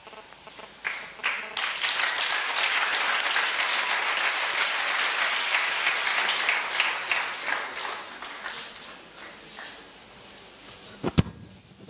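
Congregation applauding in a large hall: the clapping builds about a second in, holds steady, then dies away over the last few seconds. A single sharp knock near the end.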